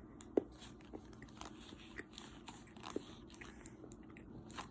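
A person biting off and chewing a small piece of sea salt chocolate bar: faint, scattered crisp clicks and crunches, the sharpest about half a second in.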